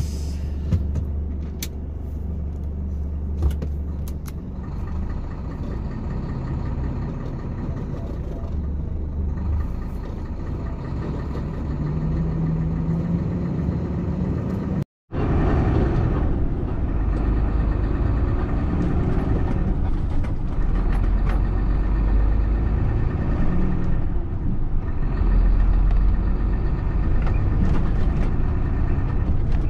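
Tractor-trailer truck's diesel engine running, heard from inside the cab, with a few sharp clicks in the first few seconds. After a sudden break the truck is under way at highway speed, a steady mix of engine and road noise.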